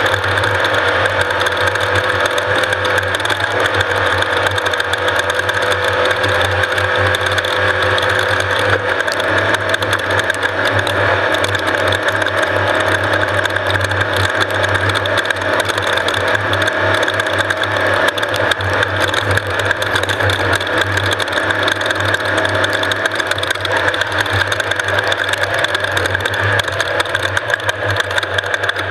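Off-road race vehicle's engine running at a steady pace under a constant mechanical rattle.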